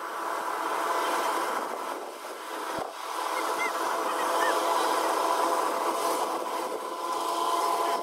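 Kubota DC-105X tracked rice combine harvester running as it cuts and threshes rice: a steady mechanical whine over a rushing noise. It grows louder about a second in and dips briefly a couple of seconds later.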